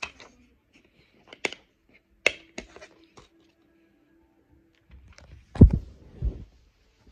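Sharp plastic clicks and snaps as a DVD disc is pried off the centre hub of its plastic case, followed near the end by two heavy thumps.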